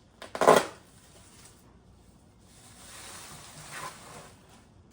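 Unpacking a shipping box: a sharp knock or clatter about half a second in, then a few seconds of rustling and scraping of packing material.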